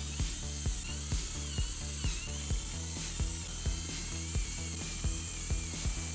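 Background music with a steady beat, and over it a power drill's motor whining as it bores into a pine board, its pitch wavering as the bit loads up in the wood.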